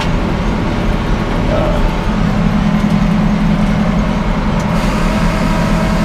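A steady low engine drone that gets a little stronger about two seconds in.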